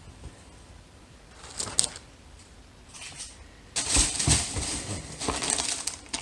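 Packaging rustling and crinkling as an item is unwrapped and pulled out of a box: a few soft crackles, then much louder, busier crinkling with small clicks for the last couple of seconds.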